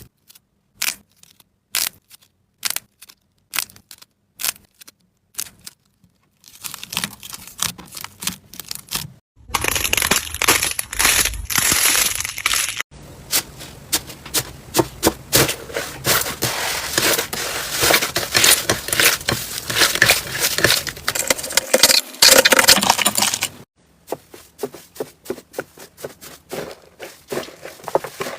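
Slime being squeezed, stretched and pressed by hand, making wet clicking and crackling pops. Sharp single clicks come about once a second at first, then dense crackling and crunching take over, loudest around ten seconds in, before thinning back to scattered clicks near the end.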